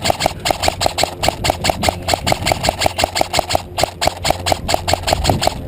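Airsoft electric gun firing on full auto in long, sustained strings, a rapid even rattle of about eight shots a second with a brief break or two.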